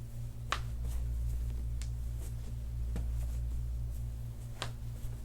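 A steady low hum with a fast flutter, and two sharp clicks, one about half a second in and one near the end, with a few fainter ticks between.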